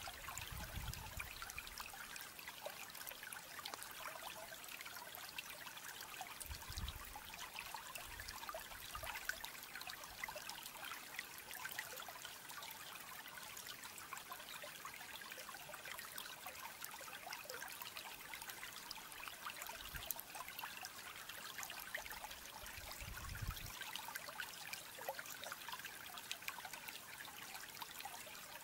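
Steady trickle of running water, with a few soft low thumps now and then.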